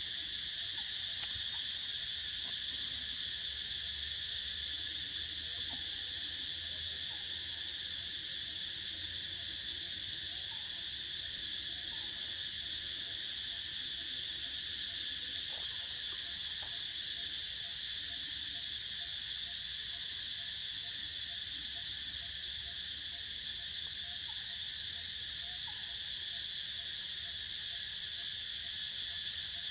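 Chorus of insects making a steady, unbroken, high-pitched drone.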